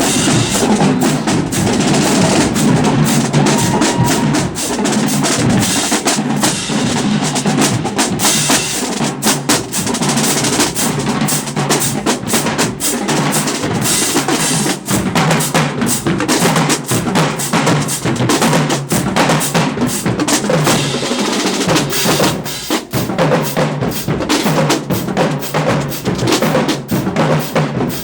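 Marching band drumline playing a cadence: snare drums rolling and rattling over bass drum hits, a dense, loud, driving rhythm.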